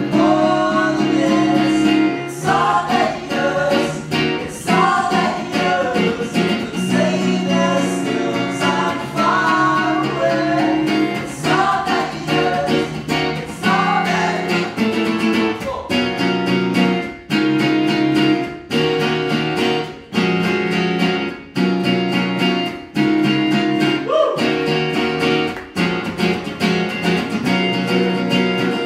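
Live band of guitars and upright piano playing a song, with a young man singing over the chords for roughly the first half; after that the guitars carry on strumming a steady chord pattern without the voice.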